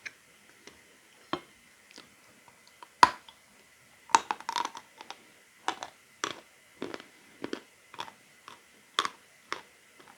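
A person biting and chewing lumps of dry edible chalk, giving a run of sharp, irregular crunches. The loudest bite comes about three seconds in, and there is a quick flurry of crunches about a second later.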